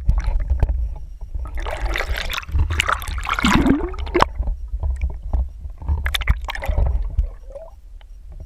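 Water splashing and gurgling in irregular surges, over a low rumble, with scattered clicks; it dies down about a second before the end.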